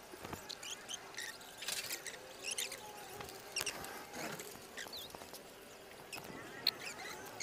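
Faint, irregular clicks and scratches of wooden matchsticks being set upright one at a time on a gritty floor.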